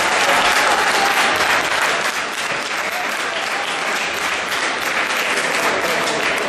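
Spectators applauding, with dense, steady clapping.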